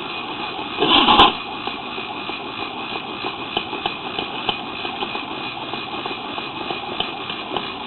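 A machine running steadily, with scattered faint clicks and a brief louder rush about a second in.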